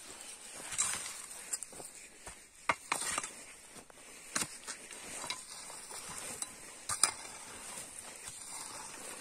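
A metal shovel scraping up loose soil and stones and dumping them back into a hole, backfilling it, with a few sharp clinks as the blade strikes stones.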